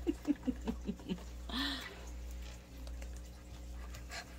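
Plush toys and their fabric wrap being handled and folded, soft rustling, with a few short vocal sounds in the first second and a half. A steady low hum runs underneath.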